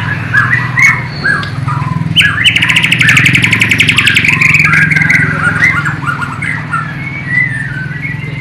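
Bornean white-rumped shama (murai batu) singing a run of varied whistled phrases, with a fast rattling trill of about a dozen notes a second from about two to four and a half seconds in. Its song is filled with learned imitations of the sikatan londo (nightingale).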